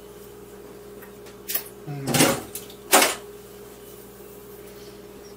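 Light kitchen handling noises: a soft knock, a short scuffing sound and one sharp click at the counter, over a steady faint hum.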